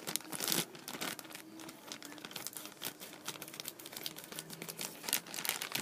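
Thin plastic bag crinkling and rustling as it is pulled open and handled, an irregular run of crackles.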